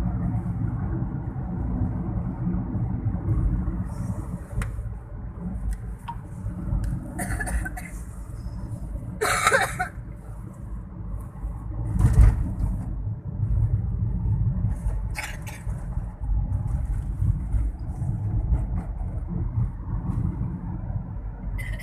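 Steady low rumble of a vehicle driving on a road, with a few brief louder whooshes.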